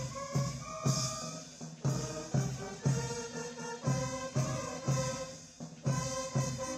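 Background music with a steady drum beat and held instrumental notes.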